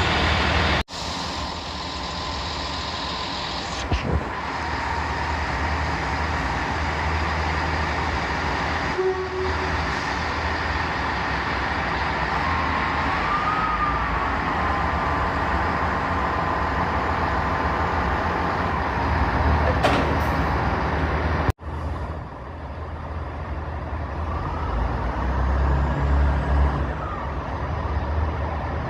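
Diesel train engines running at a station platform, a steady low drone. A short rising-and-falling whine sounds about halfway through. The sound breaks off abruptly twice, about a second in and again near 22 s, where the footage is cut.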